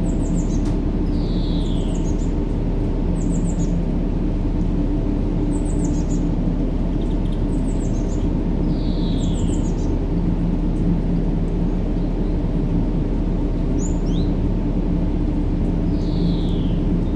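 Steady low white-noise bed with a faint hum, overlaid by small birds chirping: quick high chirps every second or two and a falling whistled note about every seven seconds.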